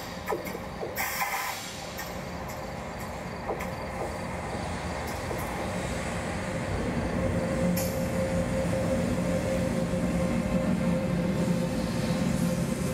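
Renfe locomotive hauling a Talgo train, approaching and passing along the platform. Its steady hum grows louder as it nears, with a few sharp clicks in the first seconds.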